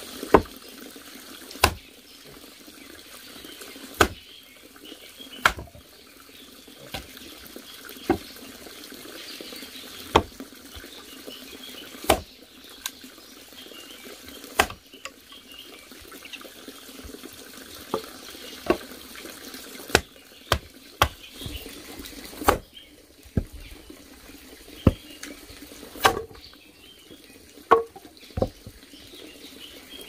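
A small axe splitting firewood on a chopping block: sharp chopping knocks every one to two seconds, coming faster in the second half. Under them is a steady rush of running water.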